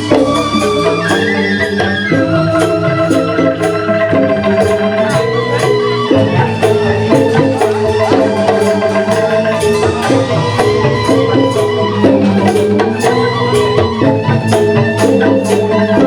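Balinese joged bumbung gamelan playing: bamboo xylophones (grantang) run in fast interlocking notes while percussion keeps a steady beat of sharp strikes, about two a second.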